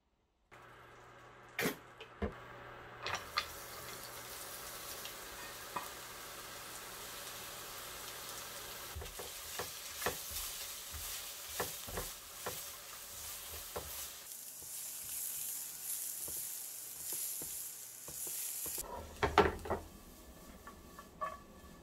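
Food sizzling in a frying pan as it is stirred, with scattered sharp knocks of a utensil against the pan. The sizzle stops about nineteen seconds in, followed by a few louder clatters.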